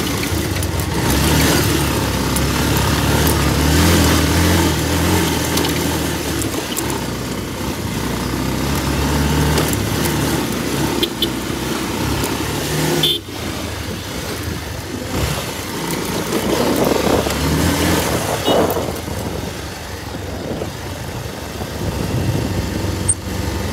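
Motorcycle engine running under way on a rough dirt road, heard from the rider's own bike, its pitch rising and falling with the throttle over steady wind and road noise. The sound briefly drops out about thirteen seconds in.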